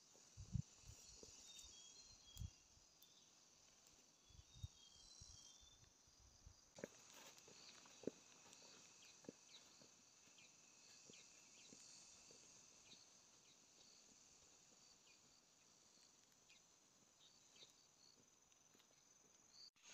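Faint forest ambience: a steady high-pitched insect drone with a few short bird chirps in the first half. Soft footsteps on grass and a few light ticks sound through it.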